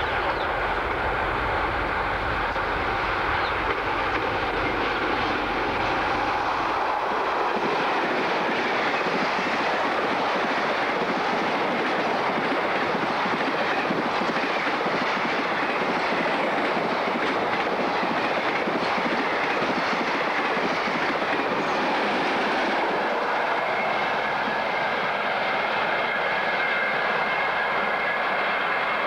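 Container freight train hauled by an NSW 81 class diesel-electric locomotive passing close by. A deep engine rumble fills the first several seconds, then the container wagons rattle and clatter past in a steady rush. A faint steady squeal rises near the end.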